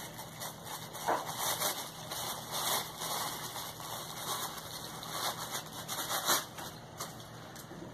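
Irregular rustling and light clicking of toy pieces and packaging being handled.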